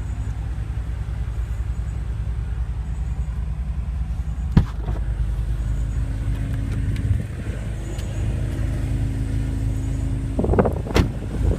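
BMW M6's twin-turbo V8 and road noise heard from inside the cabin as the car drives, a steady low drone. A single sharp click about halfway through.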